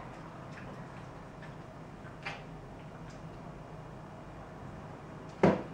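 Quiet room tone with a few faint ticks as fingers handle the small branches of a ficus bonsai, then one sharp knock near the end.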